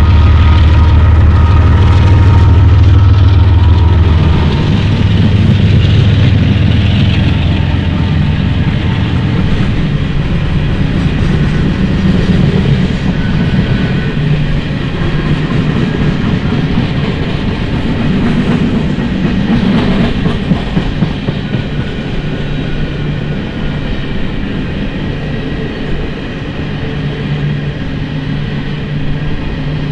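A GE diesel locomotive running mid-train as a distributed power unit passes with its engine drumming. The engine fades about four seconds in, leaving coal hopper cars rolling past on steel wheels with a steady rumble and clatter.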